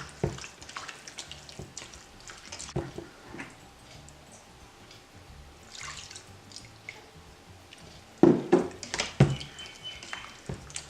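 Thin coconut milk being poured into a pan of chicken pieces, dripping and splashing, with scattered small clicks and a few louder knocks of a vessel or utensil about eight seconds in.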